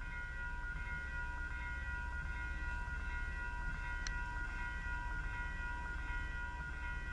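Ballast work train running past with a steady low rumble and steady high-pitched tones, and a single sharp click about four seconds in.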